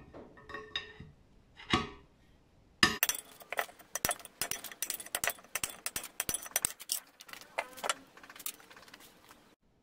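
A 4-pound hammer striking an 8 mm steel flat bar set in the pinion bore of a 2001 Isuzu KB differential housing, knocking out a pinion bearing outer race. There are a few ringing blows at first, then about three seconds in a fast run of sharp metallic clanks with ringing that stops about eight seconds in.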